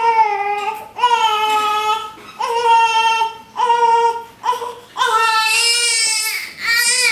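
Newborn baby crying: about six loud wails, each a second or so long, with short catches of breath between them and a longer wail near the end.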